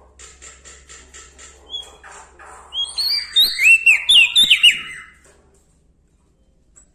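Prenjak daun songbird singing: a run of about seven quick, even chips, then a loud burst of rapid whistled notes that flick up and down, stopping about five seconds in.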